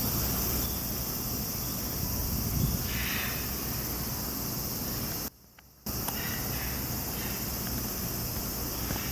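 Steady outdoor ambience with a continuous high insect drone. The sound drops out for about half a second a little past five seconds in.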